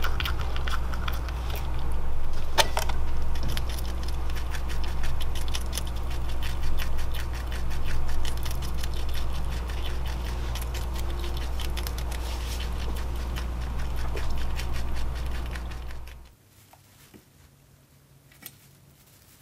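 Richardson's ground squirrel eating close up: rapid crunching and gnawing of dry food pellets and a carrot stick, many small crisp clicks with a louder crack about two and a half seconds in, over a steady low hum. About 16 seconds in the eating and the hum stop abruptly, leaving near quiet with a few faint scratches.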